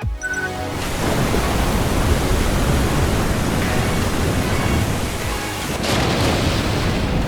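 A short musical note at the start, then about a second in a loud, steady rushing noise sets in, with music under it.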